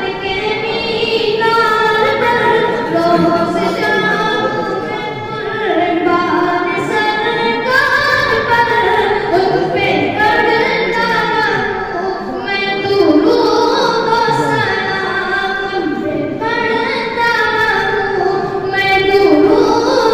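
A young boy's high voice singing a devotional naat (kalam) solo into a microphone, unaccompanied, in long melismatic sung phrases with no instruments.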